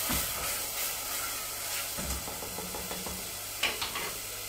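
A soffritto of blended celery, carrot and onion with an anchovy fillet gently sizzling in olive oil in a copper saucepan as it starts to fry, stirred with a wooden spatula; a couple of short clicks near the end.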